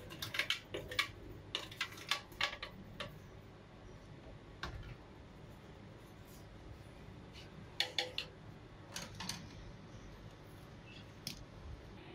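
Light knocks and clicks of a plastic blender jar and spatula against a plastic cup as thick mango slush is tipped out and scraped in. The clicks come in quick clusters over the first three seconds and again about eight to nine seconds in.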